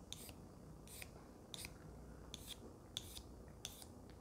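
Pencil drawing grid lines across the flat face of a whetstone: about seven short, faint scratchy strokes, roughly one every half second, marking the surface so that unflat spots show when it is lapped.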